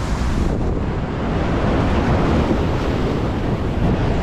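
Sea waves washing in, with wind buffeting the microphone in a steady, loud rush.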